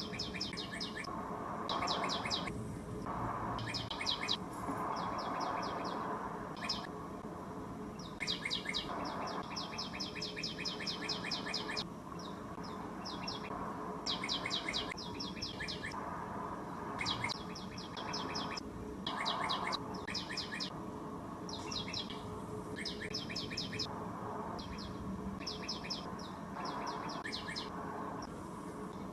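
Birds chirping: short, high, rapid trills repeated again and again over a steady background hiss.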